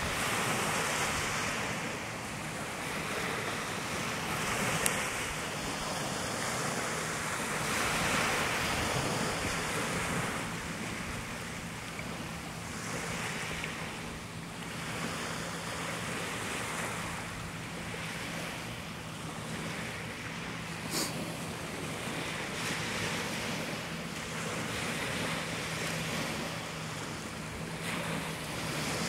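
Small waves washing up and draining back on a gravel beach, swelling every few seconds, with wind buffeting the microphone.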